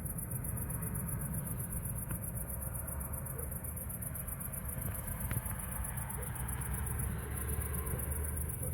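Crickets chirping steadily in a high, rapid pulse, over a constant low rumble.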